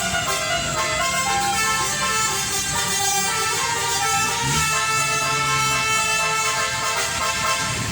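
Tour bus's 'telolet basuri' musical multi-tone horn playing a tune of held notes that step from pitch to pitch, over the bus's running noise.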